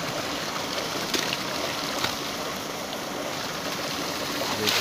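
Water gushing steadily from a pipe outlet and splashing into a ditch channel.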